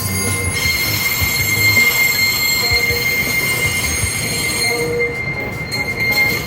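Steel wheels of a Hitachi-built SRT Red Line electric commuter train squealing on the rails: a steady high-pitched squeal over a low rolling rumble. The squeal sets in about half a second in and fades near the end.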